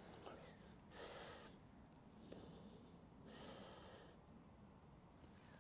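Near silence, broken twice by a faint breath close to the microphone: once about a second in and again a little after three seconds.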